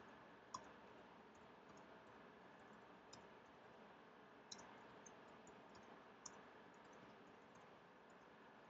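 Faint, scattered clicks of computer keyboard keys being typed over near silence, the clearest about half a second in.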